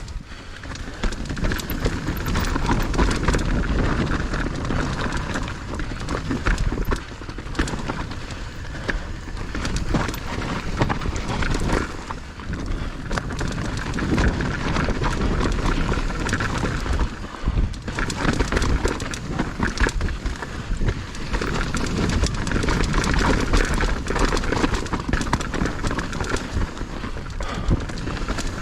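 Mountain bike riding down a dirt trail: tyres rolling over dirt and rocks, with the bike rattling and knocking over bumps.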